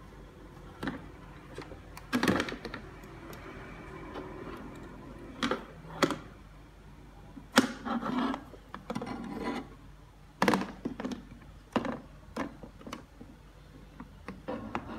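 Hard plastic knocks and clatter as a small plastic clip-on mini fan is bumped, pushed and tipped against a plastic high-chair tray, about a dozen irregular knocks with the loudest a little past halfway.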